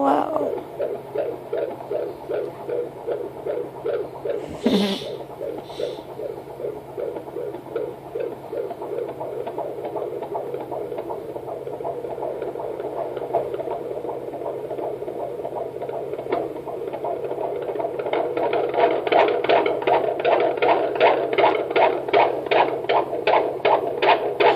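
A 20-week fetal heartbeat heard through a Doppler monitor: a fast, regular whooshing pulse over a steady hum, nearly three beats a second. The pulse grows clearer and more even in the second half. At about 160 beats a minute, it is a normal fetal heart rate.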